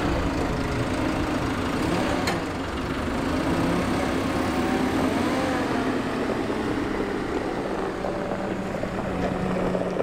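JCB telehandler's diesel engine running steadily under load while it lifts a stack of hay bales off a flatbed trailer and drives off with them, its pitch rising and falling slightly.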